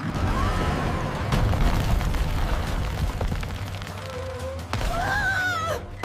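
Cartoon crash sound effect of a brick wall being smashed by a reversing truck: a sudden deep boom, then a continuing rumble of the wall breaking up.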